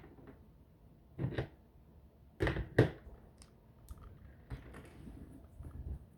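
Hard plastic Bionicle pieces being pulled apart and set down: a few sharp clicks and clatters, the loudest near the middle, then lighter ticks.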